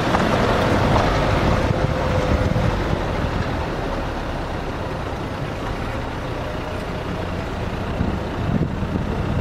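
Off-road 4x4 driving slowly over a rocky dirt track, heard from inside the cabin: steady engine running with the rumble of the tyres and body over the rough ground.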